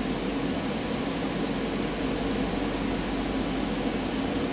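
Miyano BNE-34S2 twin-turret CNC lathe running, a steady mechanical hum from its motors and pumps.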